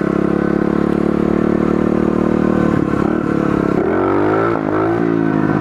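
Pit bike's small single-cylinder engine running steadily, then revved up and down briefly about four seconds in.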